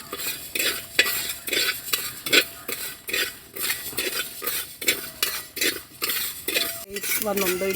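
Rice grains being dry-roasted in a hot uruli, a wide traditional cooking pan, stirred in a steady rhythm of about two scraping strokes a second, the grains rustling against the metal. The rice is being roasted until it turns brown.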